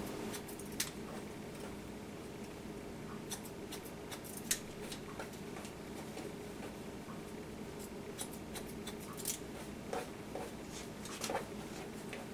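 Hair-cutting scissors snipping short sections of hair: scattered single snips, a second or more apart, over a steady low room hum.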